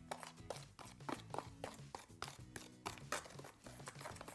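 Thick cement-based tile adhesive being stirred by hand in a container, the mixing tool scraping and knocking against it in a string of irregular clicks and scrapes. Faint music runs underneath.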